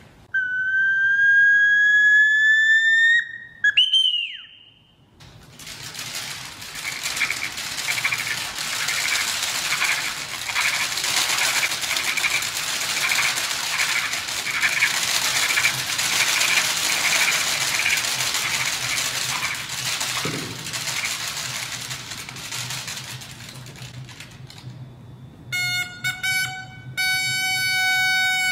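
A small metal bird-call whistle blown as a theatre sound effect: one long rising whistled note, then a quick chirp that goes up and down. A long steady hiss follows, and near the end comes a high held call that bends down at its close.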